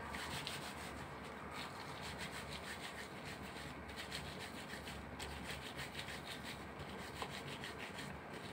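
Disposable-gloved palms rolling pork and beef mince into meatballs, a quick rhythmic rubbing of several strokes a second that stops near the end.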